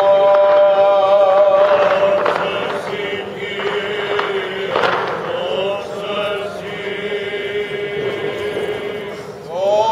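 Greek Orthodox Byzantine chant: voices holding long, steady notes, the pitch dropping a step about three seconds in and rising again near the end.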